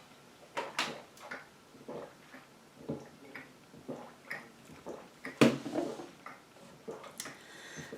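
Water being drunk: a string of short sips and swallows at irregular intervals, the loudest about five and a half seconds in.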